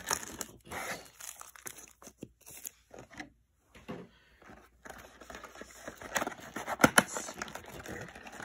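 Foil booster-pack wrappers crinkling as the packs are handled and laid down, with a brief pause a little past the middle. The crinkling grows louder in the second half, with a few sharp clicks.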